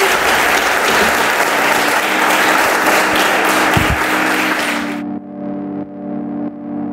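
Audience applauding, with music coming in underneath. About five seconds in, the applause cuts off abruptly and only the music goes on.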